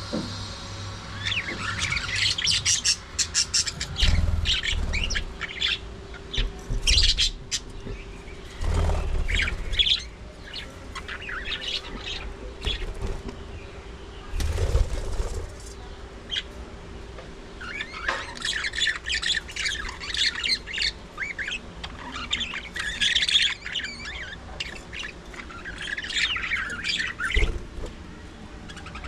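A flock of budgerigars chirping and squawking in spells of busy chatter, with a few low thumps between them.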